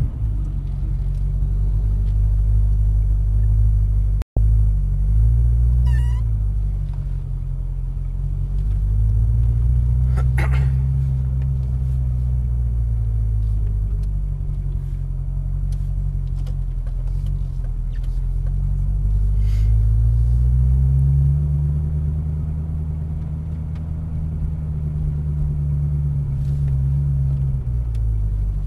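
The 2010 Corvette ZR1's supercharged 6.2-litre LS9 V8, heard from inside the cabin, running at low revs while the car moves off slowly. Its pitch rises and falls twice as the throttle is gently eased on and off. The sound drops out for an instant about four seconds in.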